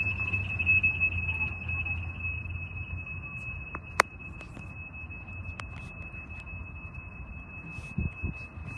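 An electronic railroad crossing warning bell ringing a steady high-pitched tone with a fast, even pulse. Under it the low rumble of a train fades away over the first few seconds, and a single sharp click comes about four seconds in.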